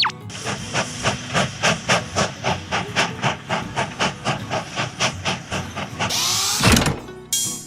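Steam locomotive chuffing, an even run of about three puffs a second, then a loud hiss of steam about six seconds in.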